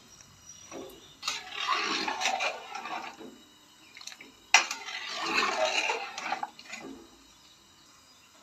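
A steel ladle stirring watery chicken curry in a metal pot: sloshing liquid and ladle scraping against the pot, in two spells of about two seconds each, the second starting with a sharp knock.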